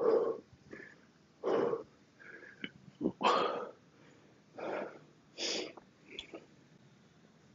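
A man breathing hard, with heavy, wheezy breaths coming about every second and a half as he catches his breath between sets of heavy kettlebell swings.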